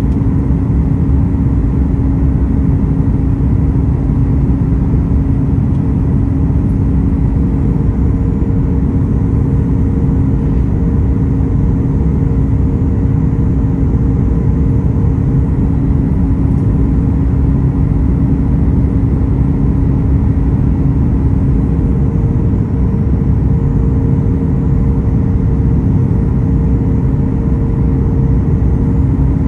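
Steady cabin noise of a Boeing 737 MAX 8 on approach, heard from a window seat beside its CFM LEAP-1B engine: a deep rumble of engine and airflow with a steady low hum, and a higher hum that fades out and comes back twice.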